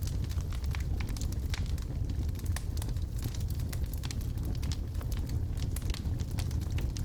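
Wood fire burning in a fireplace: logs crackling with many sharp irregular pops and snaps over a steady low rumble of the flames.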